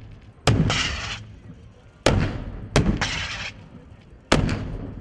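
Four heavy-weapon shots at uneven intervals, each a sudden loud blast trailing off in a rolling echo of about a second.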